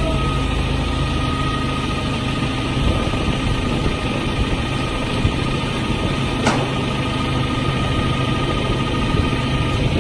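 Large marina forklift's engine running steadily while it lowers a boat into the water, with a thin steady whine above the engine. A single sharp click comes about six and a half seconds in.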